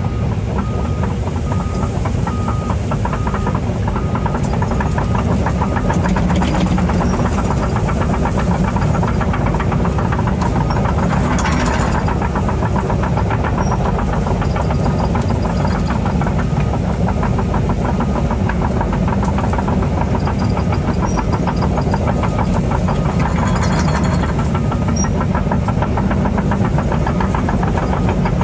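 Excavator's diesel engine running steadily with a fast, even pulsing as the machine travels on its tracks.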